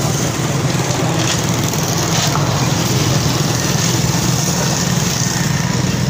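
A small engine running steadily at an even idle-like pace, a dense low chugging.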